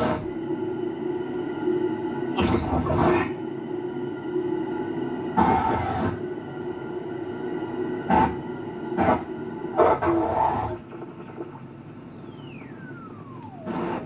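Eerie droning film or menu soundtrack broken every few seconds by short bursts of white-noise static. Near the end the drone drops away and a single tone glides downward.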